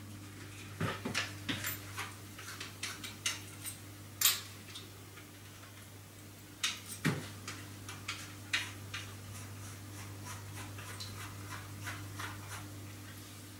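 Scattered light clicks and knocks of a wood drill bit being changed and fitted into a drill, with small parts handled on the table, over a faint steady low hum.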